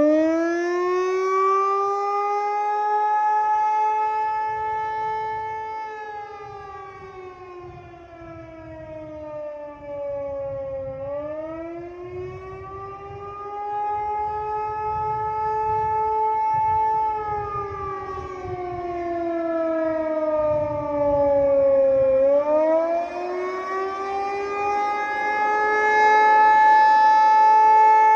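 Outdoor tornado warning siren sounding a wail during a test: one tone climbs, holds high for a couple of seconds, then slides back down, about every 11 seconds. It grows fainter toward the middle and louder again near the end.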